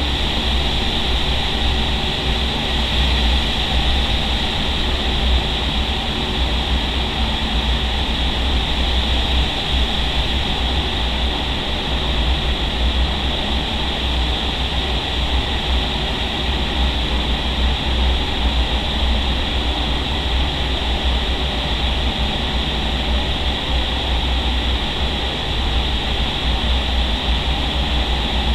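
Steady, loud rush of high-speed air through an indoor skydiving wind tunnel, heard from inside the flight chamber, with a deep rumble underneath.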